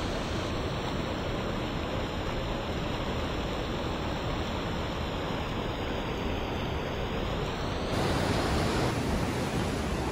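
A steady rushing noise with no distinct events, getting a little louder and brighter about eight seconds in.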